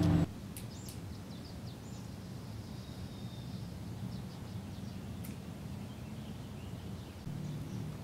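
Quiet outdoor ambience with small birds giving short, high chirps scattered through it. A low hum comes in about seven seconds in.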